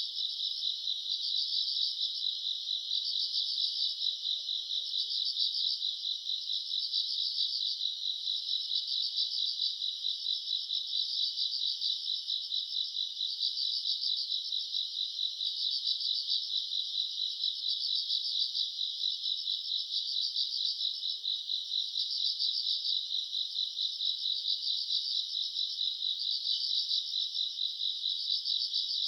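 Chorus of night-singing crickets and other grass insects, a dense high-pitched trilling that rises and falls gently every second or two without a break.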